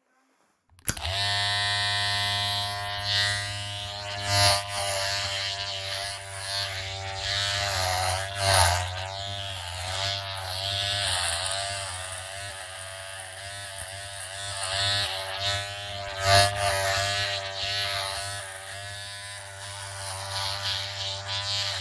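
Electric hair clippers set for a number three cut switch on about a second in and run with a steady hum, swelling and fading in loudness several times.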